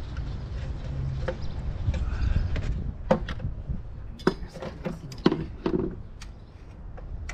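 A run of sharp clicks and knocks, mostly in the second half, of hands handling parts at the back of a car's engine bay, over a low steady rumble.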